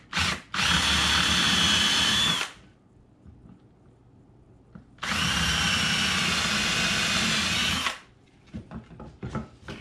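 Cordless drill boring a bolt hole through a wooden chair board: two quick trigger blips, then two steady runs of about two and three seconds at constant speed with a pause between. A few light knocks follow as the bit is pulled out.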